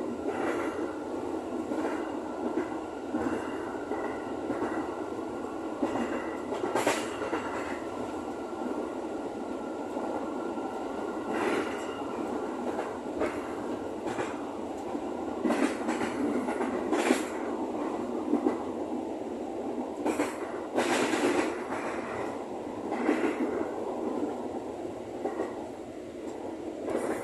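JR 205 series electric commuter train running, heard from the driver's cab: a steady rumble of wheels on rail, broken by irregular sharp clicks and knocks from rail joints and points.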